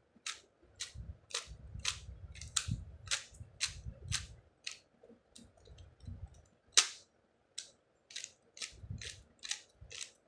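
Magnetic 3×3 Rubik's cube being turned by hand: each face turn gives a short, sharp plastic click as the magnets snap the layer into place, about two clicks a second, with one much louder click about two-thirds of the way through.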